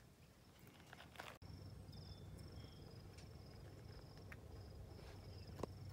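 Faint, high-pitched insect trill in short repeated spells over quiet outdoor stillness, with a few soft clicks in the first second or so.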